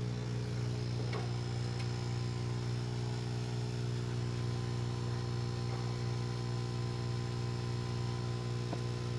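Steady electric hum of a DIY froth flotation cell running, its overhead stirrer motor spinning the shaft in the ore slurry while air is pumped in. It is one low, even drone that doesn't change.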